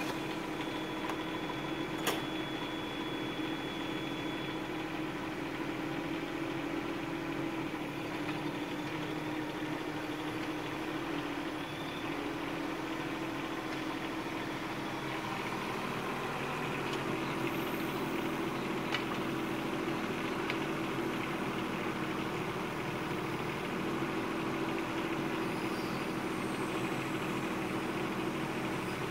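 Bobcat 418 mini excavator's diesel engine running steadily at idle, with a sharp click about two seconds in.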